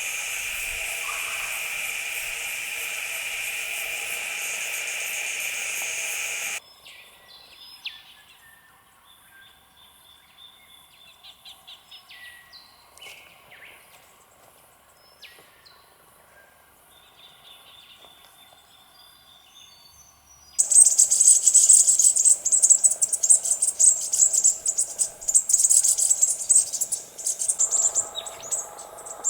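Bush ambience in three abruptly cut sections: first a steady, high insect drone, then a quieter stretch with scattered short bird calls, then a loud, pulsing high insect buzz that starts suddenly about 21 seconds in.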